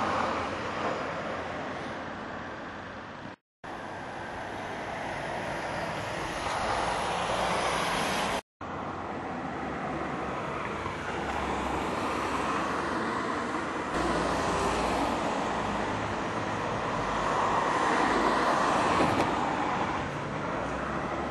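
Car driving in traffic: a steady rush of tyre and engine noise that swells a little near the end. The sound cuts out for a moment twice in the first nine seconds.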